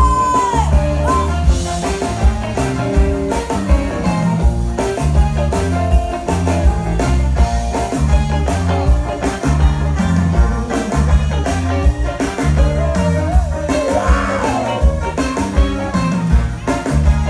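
Live band playing at a steady beat, with electric bass, drums, electric guitar and keyboards, and a woman singing over it at times.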